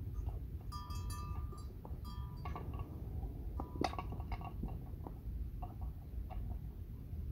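Water buffaloes grazing, with short clinks of a bell ringing near the same pitch several times and scattered sharp clicks of grass being cropped. A steady low rumble of wind on the microphone runs underneath.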